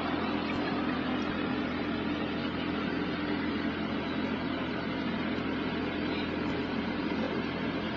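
Steady mechanical hum with a constant hiss, the unbroken ambient drone inside a broiler chicken shed.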